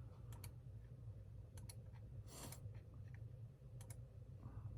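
Sparse computer mouse clicks, mostly in quick pairs, about three times, over a low steady hum.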